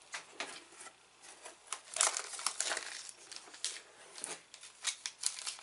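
Snack wrapper and packaging crinkling and rustling in irregular bursts as it is handled, densest about two seconds in.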